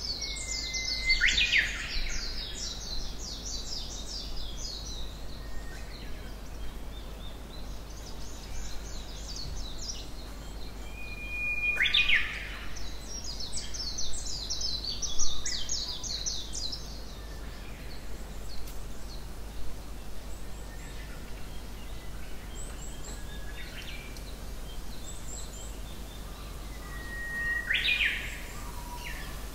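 Wild songbirds singing in a spring forest: one bird repeats a short phrase of a held whistle ending in a quick sharp sweep, three times, while another gives a long, rapid run of high notes twice, over a faint steady background hiss.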